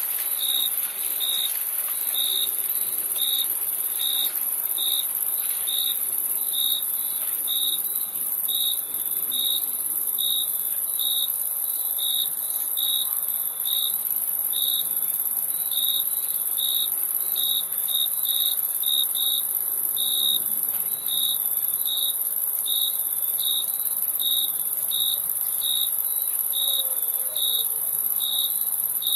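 Crickets chirping: short chirps repeating evenly, about one and a half a second, over a steady high-pitched trill.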